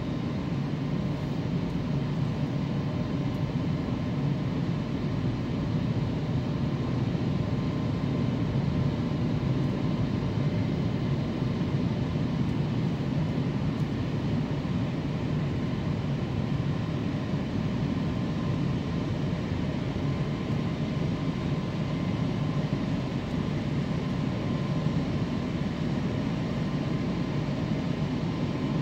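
Automatic car wash machinery heard from inside the car: rotating cloth brushes and water spraying over the bodywork. It makes a steady rushing noise with a faint constant whine of the motors, and no knocks or pauses.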